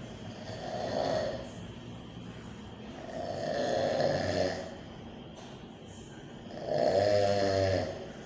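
A man snoring: three snores about three seconds apart, the last one the loudest.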